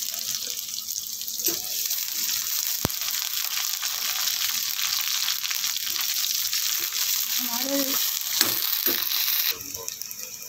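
Sliced onions sizzling in hot oil in an iron kadhai (wok), with a steady frying hiss and a few scrapes and taps of a perforated metal spoon stirring them, the sharpest about three seconds in. The sizzle drops off sharply near the end.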